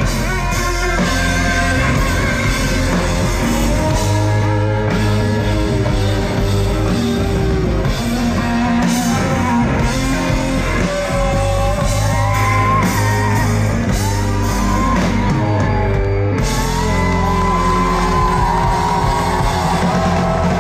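Rock band playing live, a singer over electric guitar and heavy bass.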